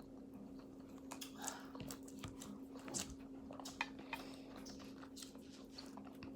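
Faint eating sounds: chewing, with scattered small clicks and crackles, over a steady low hum.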